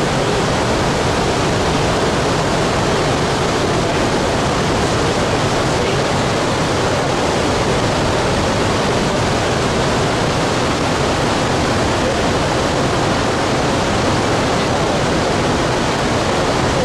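Victoria Falls, the Zambezi River plunging over the gorge edge, heard as a loud, steady rush of falling water with no let-up.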